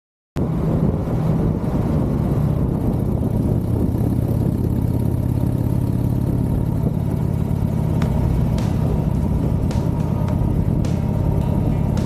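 Buell XB12R's air-cooled V-twin engine running steadily, cutting in abruptly, with a few sharp clicks in the second half.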